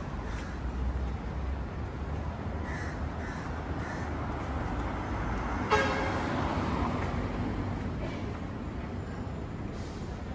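Steady low street noise, with one loud, short, harsh pitched call just before the six-second mark and fainter short calls about three seconds in.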